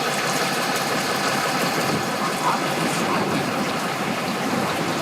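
Outboard boat motor running, mixed with a steady rush of churning water.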